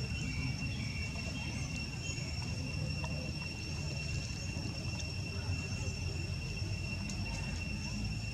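Steady, unbroken high-pitched insect drone, like a cricket or cicada chorus, over a low rumble.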